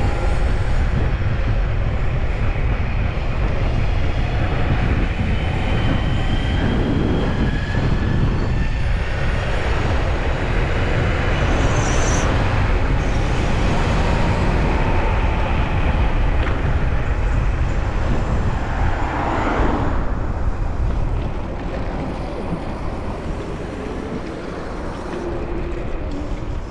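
Wind rushing over the camera microphone and tyre noise from a Vsett 10+ electric scooter riding at speed, with faint whining tones that rise and fall. It eases off somewhat after about twenty seconds.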